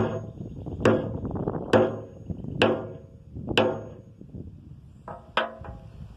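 Hammer striking the top of a wooden dowel rod to pack powdered potassium nitrate and sugar rocket fuel into a PVC pipe engine housing. Seven sharp knocks, each with a short ring, about one a second, with a gap before the last two, which come in quick succession.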